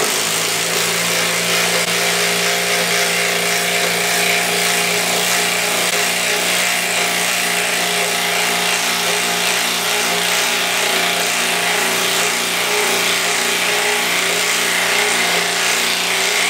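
DeWalt 12V impact driver hammering without a break as it drives a lag bolt in, a steady run lasting the whole stretch.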